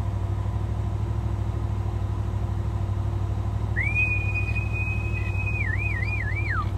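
A person whistling: one long held note that starts about four seconds in, then wavers three times and slides down. Under it the engine of a side-by-side UTV hums steadily.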